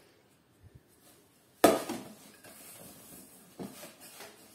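A stainless steel mixing bowl knocks down onto a stone countertop with a sharp clank about a second and a half in. A silicone spatula then stirs butter and sugar in it, with faint scraping and a few light knocks against the bowl.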